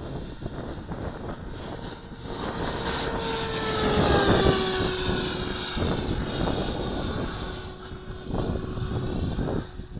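Electric ducted fan of an HSD Hobby J-10 RC jet (105 mm fan on an 8S motor) whining as the jet makes a low pass. The pitch drops as it goes by, loudest about four seconds in, then it fades.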